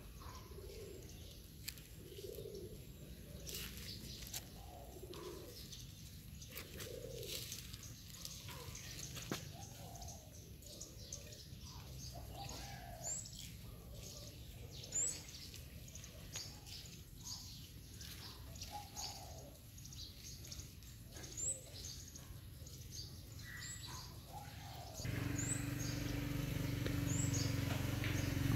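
Small birds chirping over and over, with low cooing-type calls in the first part. About 25 seconds in, a motor's steady hum starts and grows louder.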